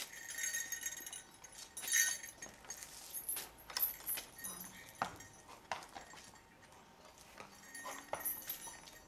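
Metal fittings of a horse's harness and bridle clinking and jingling as they are handled and buckled on, with scattered small knocks.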